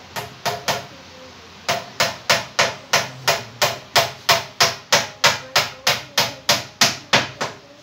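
Hammer blows, as when nailing a lower kitchen cabinet's frame under the counter: three quick strikes, a short pause, then steady hammering at about three strikes a second that stops just before the end.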